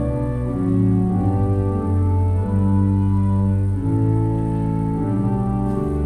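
Church organ playing slow, sustained chords that change about every second, over deep bass notes.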